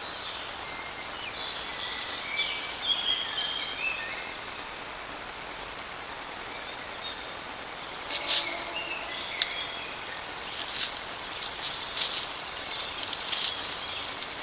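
Steady hiss with birds singing for the first few seconds. From about eight seconds in comes a run of short, crisp clicks and rustles close to the microphone, typical of a grazing deer tearing and chewing grass.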